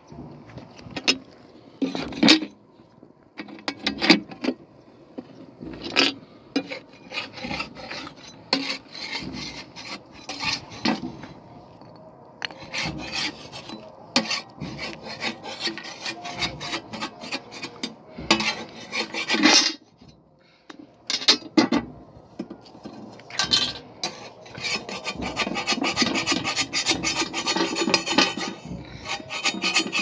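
Irregular scraping and rasping strokes with occasional knocks, turning into a fast, steady rasping rhythm for the last several seconds.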